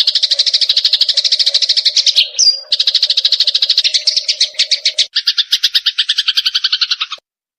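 Eurasian tree sparrow chattering in a fast, even run of chirps, about ten a second, broken by a short whistled note about two seconds in. The pattern changes abruptly about five seconds in and cuts off about seven seconds in.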